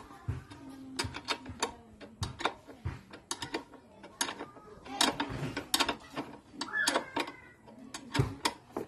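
Ratchet wrench clicking in quick, irregular runs as a bolt under a motor scooter's seat is worked, with light metallic clinks of the tool.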